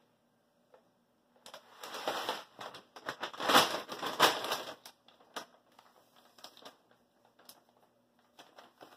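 A resealable plastic bag of brown rice crinkling as it is handled. The sound starts about a second and a half in and is loudest around four seconds in, then thins to scattered light rustles and clicks.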